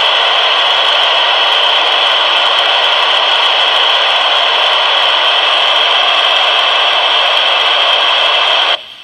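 Steady loud static hiss from a handheld ham radio's speaker, the FM receiver open on the ISS downlink with no voice coming through. Just before the end the hiss cuts off abruptly as the station's signal comes in.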